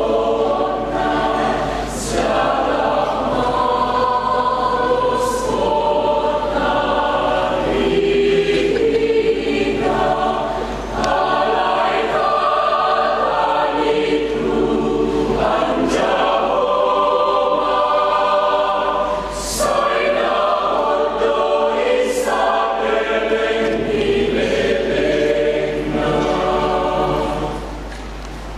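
Church choir singing, its sustained phrases broken by short breaks for breath about every eight or nine seconds.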